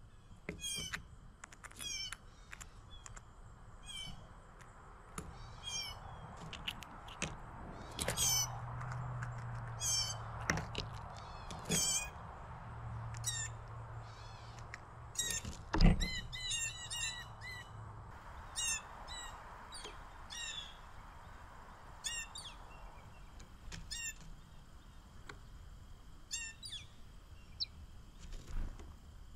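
Songbirds calling with short, high chirps repeated every second or so. A single loud thump sounds a little past halfway, and a faint low hum runs through the middle.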